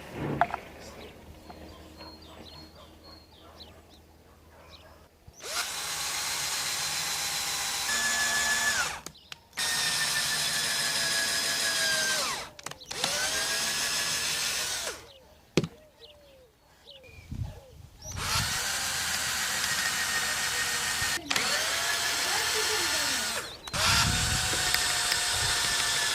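Electric drill running in a series of short bursts, each spinning up and winding down, as wooden chandelier parts are drilled. There are about six runs of a few seconds each, starting about five seconds in, with a sharp click and a couple of knocks between them.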